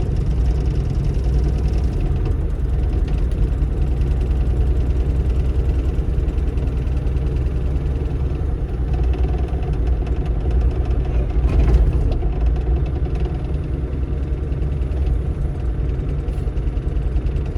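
Bobcat E35 mini excavator's diesel engine running steadily under hydraulic load while it digs, with one brief knock about two-thirds of the way through.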